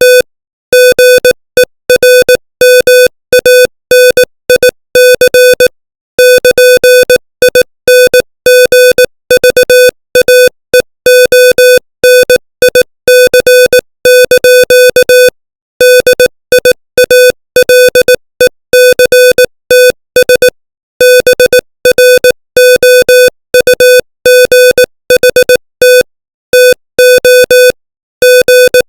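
Morse code at 18 words per minute: one steady-pitched electronic tone keyed on and off in dots and dashes, with longer pauses between words, spelling out English text.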